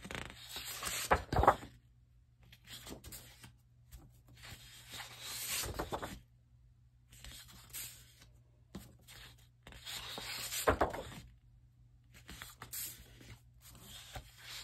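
Sheets of patterned scrapbook paper being handled, slid and flipped over by hand, in several separate rustling bursts with short pauses between them.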